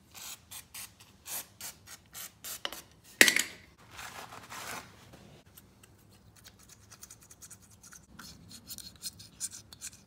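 Razor blade scraping old sealant off the mating surface of a CD009 transmission case, in a run of short scrapes, about two or three a second at first, with a louder scrape about three seconds in and quicker, fainter strokes near the end.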